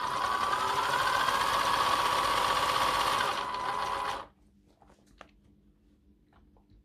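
Electric DC motor and drivetrain of a 1/14 Tamiya King Hauler RC truck spinning under throttle for about four seconds, a steady whine that rises a little in pitch and then stops. It is turning backwards on forward throttle: the motor wires are connected the wrong way round.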